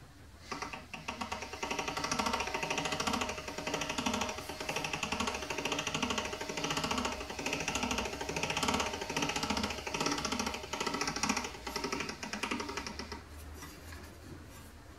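Hand-cranked stainless-steel pasta machine rolling a sheet of dough: a rhythmic metallic rattle of the crank and roller gears, repeating about every two-thirds of a second. It starts about half a second in and stops about two seconds before the end.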